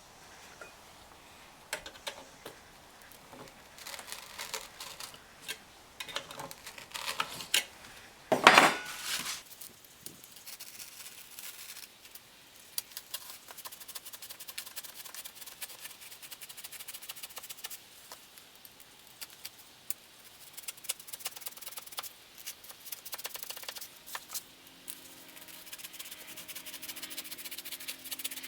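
A blade scoring a cut line by hand: irregular scratchy rubs and clicks as it is drawn over and over, with one louder scrape about eight seconds in.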